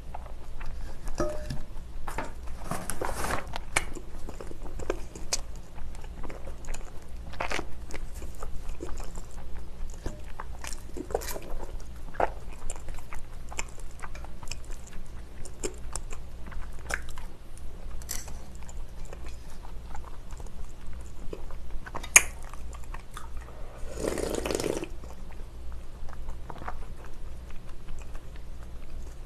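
Close-miked chewing of spicy bibim-naengmyeon cold noodles in broth, with small wet mouth clicks and crunches throughout and one sharp click about 22 seconds in.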